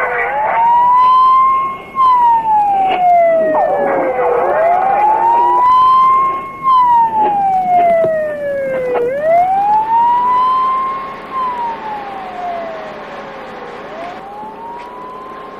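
Emergency vehicle siren sounding a slow wail, its pitch rising and then falling about every four and a half seconds, growing quieter over the last few seconds. A few sharp knocks are heard early on.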